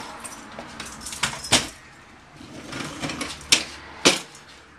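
Four sharp metal clanks and knocks of tools being handled and set down while working under a truck axle, the two loudest about a second apart near the end.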